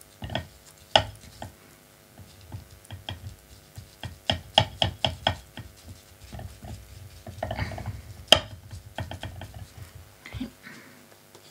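Paintbrush dabbing glue-soaked newspaper onto a bumpy glass bottle: a run of soft taps and clicks, some in quick bursts of several a second, with one sharper click a little past eight seconds in.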